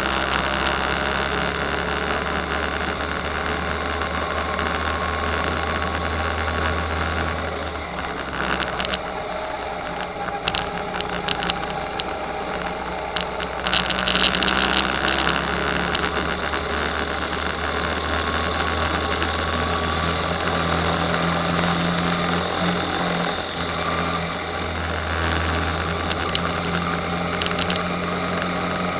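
Rental go-kart's small engine running steadily under the onboard camera, its note drifting slightly up and down as the speed changes. A short burst of rattling comes about halfway through.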